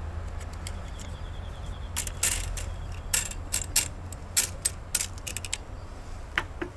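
Sharp metallic clicks and clinks as the buffer and coiled recoil spring of a Tokyo Marui CQBR Block 1 gas blowback airsoft rifle are pushed free of the buffer retainer and drawn out of the buffer tube, a scatter of them from about two seconds in, over a steady low hum.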